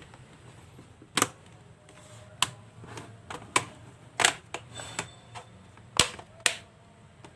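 Laptop's plastic casing being pressed shut and handled: about nine sharp, irregular clicks and snaps as the case closes up.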